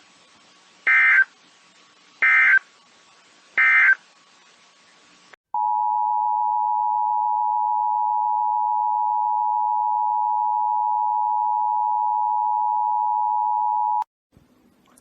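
Emergency Alert System test broadcast: three short bursts of the warbling digital SAME header data about a second and a half apart, then the EAS two-tone attention signal held steady for about eight and a half seconds before it cuts off abruptly.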